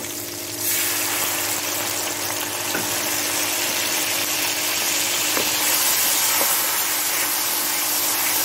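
A little water poured into the hot oil and softened onions, chillies and tomatoes in a kadhai, hissing and sizzling loudly from about half a second in and holding steady. A few faint taps come from the spatula.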